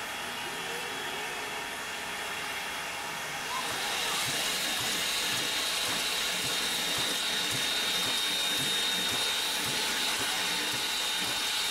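Steam hissing steadily from Norfolk & Western No. 475, a 4-8-0 steam locomotive, standing in steam. About three and a half seconds in the hiss grows louder and takes on a thin high whistling edge, with a faint quick low pulsing underneath.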